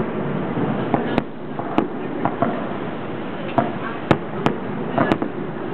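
Fireworks going off in an irregular series of sharp bangs, about ten in under six seconds, over the chatter of a watching crowd.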